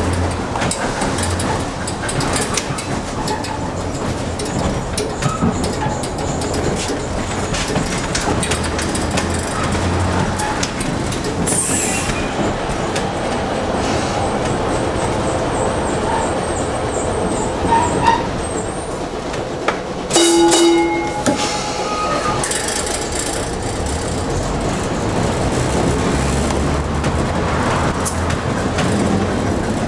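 Peter Witt streetcar 6119 running on its rails, heard from the operator's cab: a steady rumble of wheels and motors with scattered rail clicks. A short, loud ringing tone sounds once a little past two-thirds of the way through.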